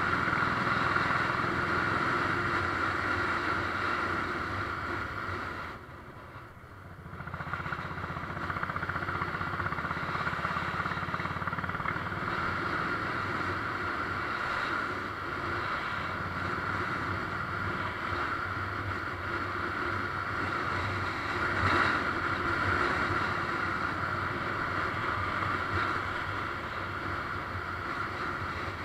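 Motorcycle engine running at riding speed under a steady rush of wind over the microphone. The sound drops away briefly about six seconds in.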